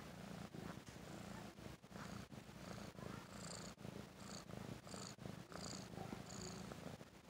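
Seal-point mother cat purring steadily and closely while with her newborn kittens. Midway, a few short high peeps come through faintly.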